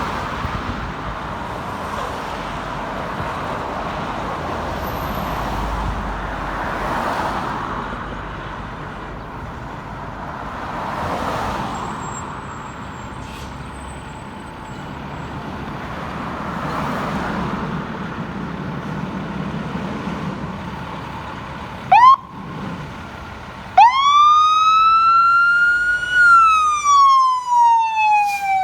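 Traffic passing with a steady rushing sound that swells and fades several times. Then a fire engine's siren gives a short whoop, then a wail that climbs and slowly falls, the apparatus responding on an emergency call.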